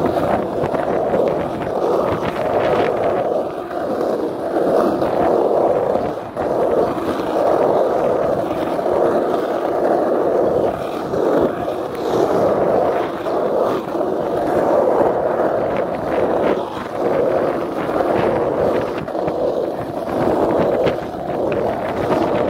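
Skateboard wheels rolling over an asphalt pump track, a continuous rolling noise that swells and eases every second or two as the board pumps over the rollers.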